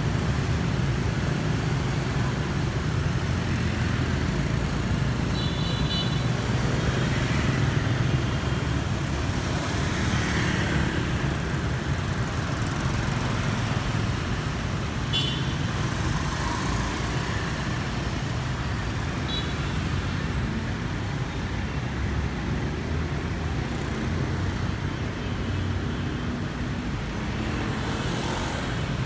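Busy street traffic: a steady hum of motor scooter and car engines passing. Short, high horn beeps sound three times, about five, fifteen and nineteen seconds in.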